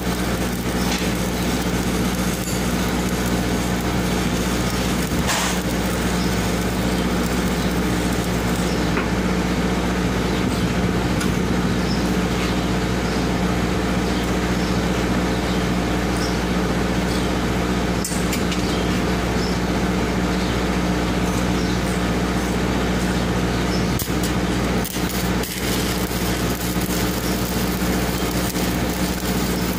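An engine runs steadily at idle with an even hum. Over it, stick-welding arc crackle is heard for the first several seconds and then stops.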